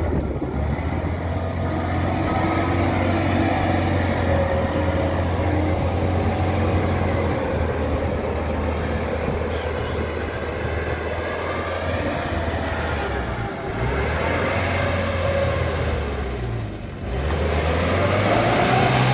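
UAZ Bukhanka van's engine labouring steadily under throttle as the van pushes slowly through deep flooded mud, with the revs dropping briefly twice in the second half.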